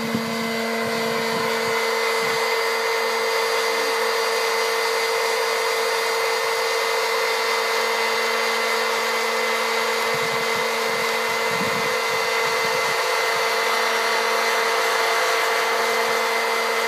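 Hot-air popcorn popper roasting coffee beans: its fan motor runs steadily with a low hum over the rush of air blowing the beans round the chamber.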